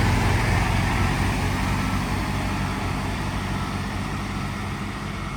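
A vehicle driving through floodwater and away. Its engine and the rush of water spray fade steadily.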